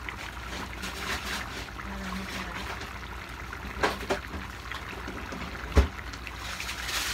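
Chicken and potato stew in tomato sauce simmering in a pan on a gas burner, the sauce bubbling and popping in a steady crackle. Two sharper clicks about four seconds in and a single thump near the end.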